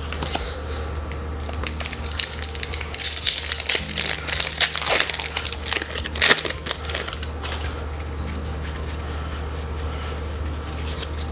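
Foil wrapper of a Magic: The Gathering booster pack crinkling and tearing as it is ripped open by hand, busiest through the middle and thinning out near the end. A steady low hum runs underneath.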